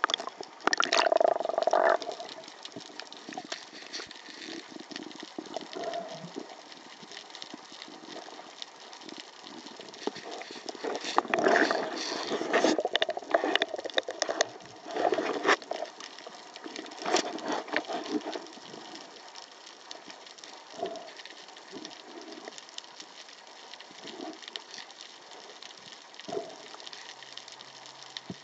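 Water sounds picked up by an underwater camera as a diver descends: muffled sloshing and bubbling in irregular bursts, loudest at the start and again around the middle, over a steady hiss with scattered clicks.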